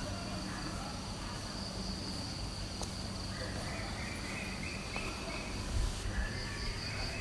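Insects calling in a steady high-pitched chorus, with a second, lower-pitched insect note joining about three seconds in.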